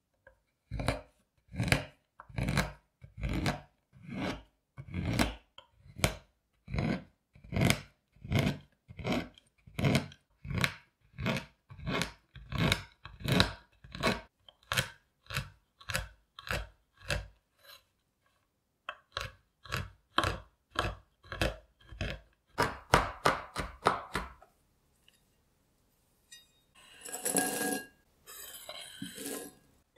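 Kitchen knife chopping a bar of white chocolate on a wooden cutting board, a steady run of strokes at about two a second, with a short break and then a quicker run of chops. Near the end, the chopped chocolate slides off the board into a glass bowl with a brief rustle.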